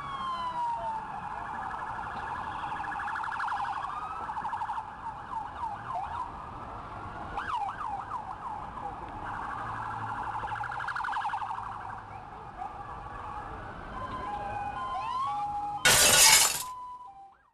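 Several emergency-vehicle sirens wailing and yelping together, their tones rising and falling over one another. About sixteen seconds in, a loud crash of shattering glass, then the sound fades out.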